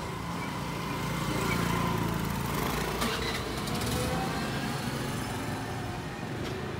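Motor scooter engines running as scooters ride past, over steady street noise.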